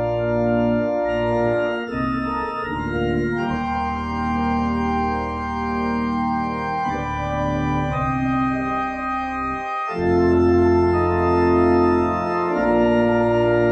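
Church organ playing slow, sustained chords over a deep bass line, the chords changing every few seconds. It drops off briefly just before ten seconds in, then comes back louder.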